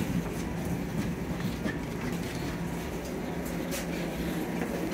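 Toronto streetcar running with a steady hum and a held low tone, with a few faint clicks.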